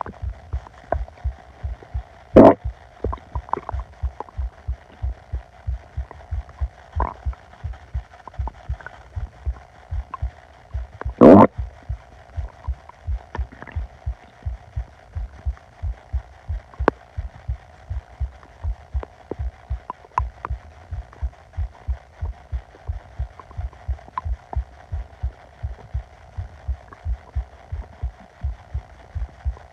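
Close recording of an upset stomach: a steady low pulse thumping about two to three times a second over a faint steady hum, with two short, loud gurgles about two seconds and eleven seconds in.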